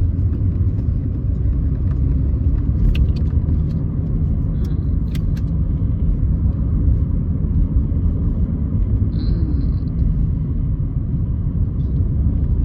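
Steady low road and engine rumble of a moving car heard from inside the cabin, with a few light clicks.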